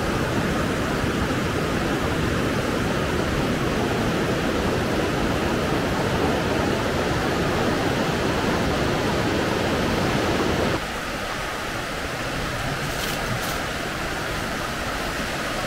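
Flowing water rushing steadily. About eleven seconds in the sound changes abruptly: the deep rumble drops away and a lighter, higher rush goes on, a little quieter.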